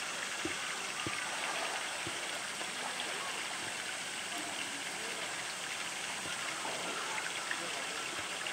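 Steady rush of moving water in a polar bear's pool. A few soft thumps in the first two seconds come as the bear swims, pushing and mouthing a floating blue plastic tank.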